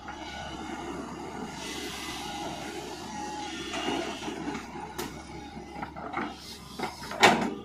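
Long-reach Tata Hitachi excavator working: a steady run of engine and hydraulic noise as the boom swings and the bucket works in the pit. Several knocks come in the last three seconds, the loudest just before the end.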